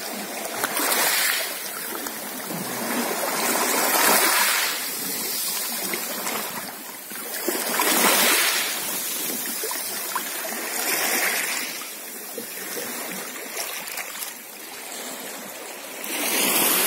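Small waves washing in over a shallow pebble shore, surging and falling back every three to four seconds, with an oar blade splashing in the shallows.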